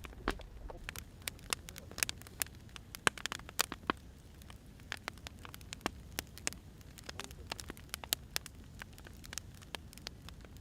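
Wood fire burning, with irregular sharp crackles and pops from the burning firewood over a faint low rumble.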